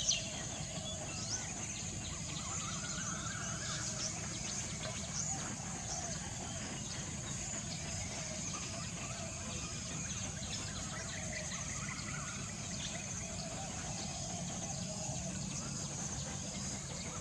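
Steady background noise: a constant low hum and a high hiss, with a few faint, scattered chirps and no loud calls.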